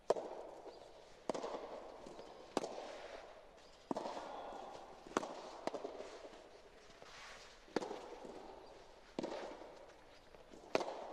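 Soft tennis rally: a rubber soft tennis ball struck back and forth by rackets, starting with the serve, about nine sharp pops roughly a second and a half apart, each echoing under the roof.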